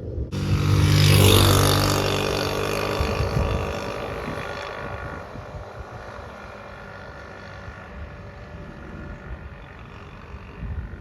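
A motor vehicle's engine comes in suddenly, loudest about a second in, then fades away over the next few seconds. It leaves a low steady rumble with wind noise.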